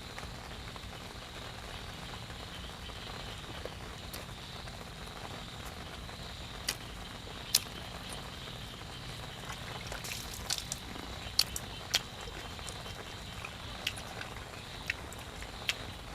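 Eating sounds: a dozen or so sharp, short crunches and clicks, scattered and growing more frequent in the second half, over a steady background hiss.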